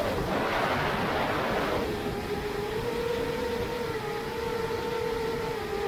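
7-inch FPV quadcopter's motors and propellers, first with a rush of noise for about two seconds, then a steady, slightly wavering hum as it holds a near-constant throttle.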